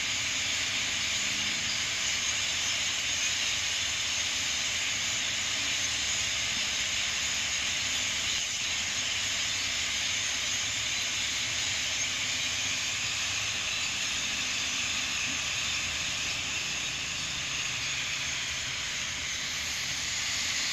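A very large flock of European starlings passing overhead, thousands of calls merging into a steady, high-pitched chattering din.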